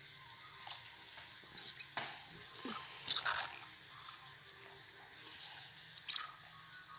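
Baby monkey and baby sucking milk from feeding bottles: small wet sucking and smacking clicks at the bottle teats, scattered through, with a louder cluster about three seconds in and another about six seconds in.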